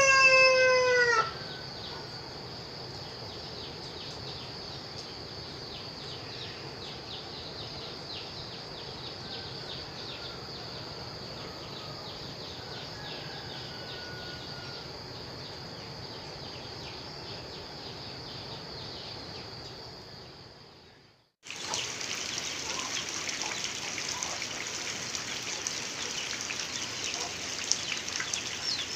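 A rooster crows once at the start. Then comes steady rain with a constant high-pitched tone behind it. About two-thirds of the way through, the sound cuts to louder, hissier rain.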